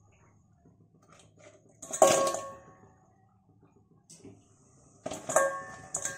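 Crisp fried thekua dropped into a stainless steel bowl, clattering against the metal, which rings briefly after each drop. Two loud clatters come about two and five seconds in, with a smaller one just after the second.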